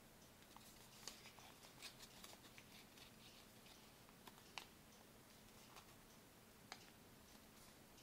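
Near silence with faint crinkles and small snaps of origami paper being creased and folded by hand: a cluster of them between about one and two and a half seconds in, and single sharper ones at about four and a half and seven seconds in.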